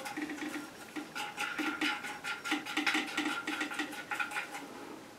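Nuts being spun by hand onto the brass tank bolts of a toilet tank: light, irregular scratchy clicking of metal on the threads, several clicks a second.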